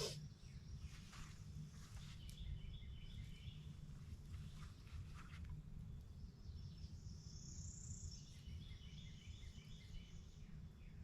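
Faint outdoor ambience with a steady low rumble, and birds calling: a run of rapid chirps about two seconds in, a high whistled note that rises and falls around the middle, and another run of chirps near the end.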